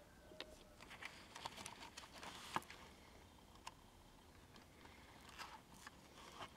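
Near silence with faint, scattered clicks and light taps of the transistor radio's chassis and parts being handled; the sharpest tap comes about two and a half seconds in.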